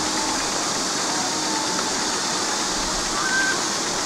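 Steady rush of falling or running water, an even hiss that does not change.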